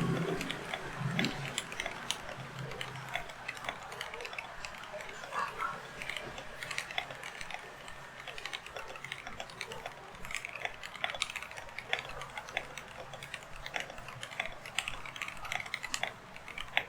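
Keydous NJ81 mechanical keyboard with Kailh Box Red linear switches being typed on fast and continuously, a dense, uneven stream of key clacks during a typing speed test.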